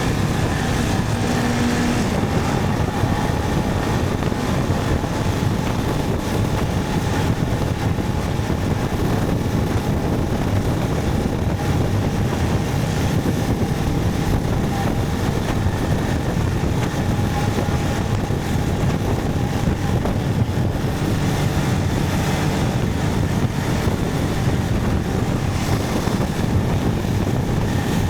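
Motorcycle under way: steady engine and road noise with wind buffeting the microphone.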